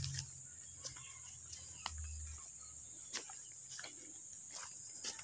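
Insects droning steadily at a high pitch, with footsteps crunching now and then on dry leaves and twigs.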